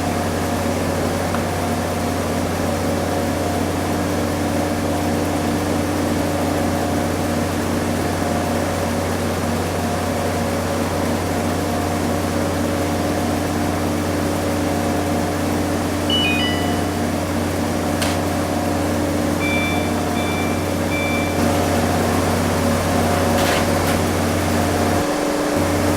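Front-load washing machine on its spin cycle: a steady, even hum of the motor and drum spinning at speed.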